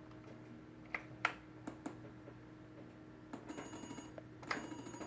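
A few soft clicks, then from about three seconds in the Atari 8-bit computer's SIO data-transfer noise: a buzzing, rapidly pulsing tone with a high whistle, broken once by a short gap. This is a disk image loading over the serial bus from the ESP8266 adapter, which is still not loading reliably.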